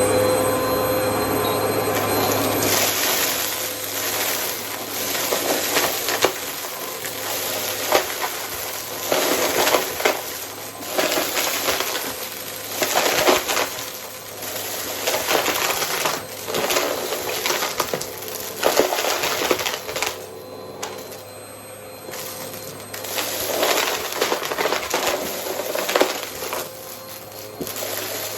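Vacmaster vacuum cleaner running steadily, with irregular crackling and rattling surges as it sucks up debris and the nozzle is worked back and forth.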